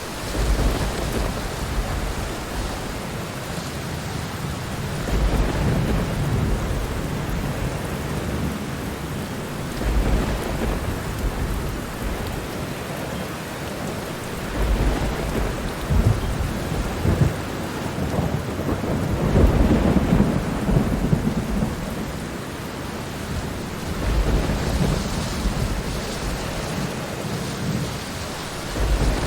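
Steady rainfall with low, distant rumbles of thunder rolling in again and again, several times over, the loudest about two-thirds of the way through.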